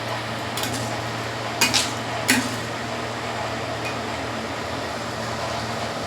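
A few short clinks of a kitchen utensil against a cooking pot, about four in the first two and a half seconds, over a steady low hum.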